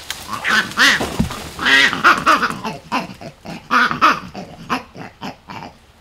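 Vervet monkeys calling loudly in a squabble: a run of calls that waver in pitch, three long ones in the first four seconds, then shorter ones that thin out near the end.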